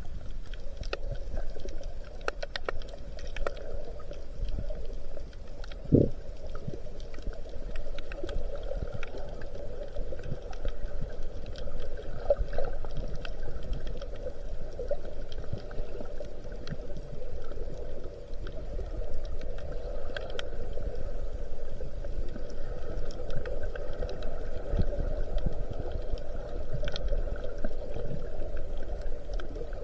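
Underwater sound picked up by a submerged camera: a steady muffled hiss and hum of seawater with scattered faint clicks and crackles, and one dull knock about six seconds in.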